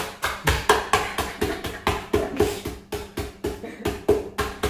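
A bowl pounding Oreo cookies in a plastic bag on a stone countertop, crushing them: quick, regular knocks about four times a second.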